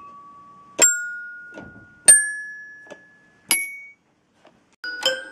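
Little Tikes toy xylophone-piano: three keys pressed one after another, each hammer striking a metal bar that rings and fades, the notes rising in pitch. Near the end a faster run of notes on another toy piano begins.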